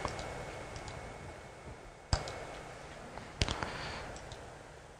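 A handful of short, sharp clicks from a laptop being worked, its keys and mouse buttons, spaced irregularly, with two close together after about three and a half seconds, over faint room noise.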